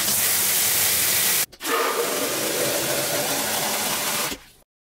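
Water spraying from an Andeg filtering showerhead in a steady hiss. After a short break about one and a half seconds in, the spray pours into a clear container of water, frothing it up, until the sound cuts off near the end.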